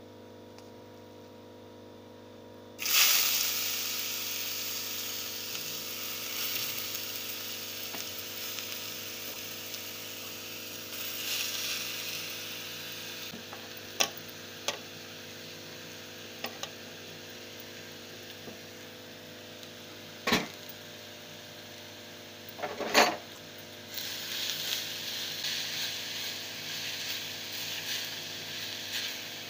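Grated beetroot goes into hot ghee in a pan about three seconds in, setting off a sudden loud sizzle that settles into steady frying. A ladle knocks and scrapes against the pan a few times as it is stirred, and the frying grows livelier near the end.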